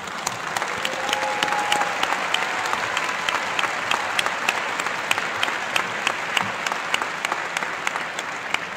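Crowd applauding in a large hall, swelling at the start. One clapper close to the microphone claps steadily, about four claps a second, above the rest.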